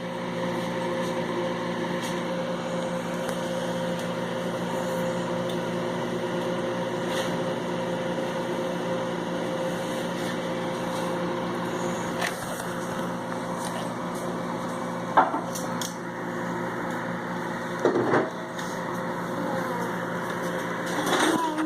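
Microwave oven running with a steady hum while it heats a bar of soap, with a few sharp clicks or pops here and there.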